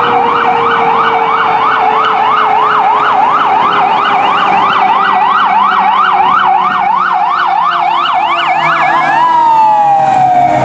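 Fire rescue truck's siren in a fast yelp, about three rapid up-and-down sweeps a second, switching to a slow falling wail about nine seconds in as the truck draws alongside. A lower steady tone slides slowly down in pitch beneath it, and the truck's engine rumble rises near the end.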